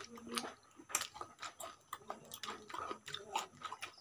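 Faint chewing of roti and chicken curry: irregular wet mouth smacks and small clicks, a few to the second.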